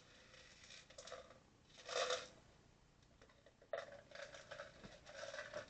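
Small plastic Lego Technic pieces handled, clicking and rattling against each other in short scattered bursts, the loudest about two seconds in.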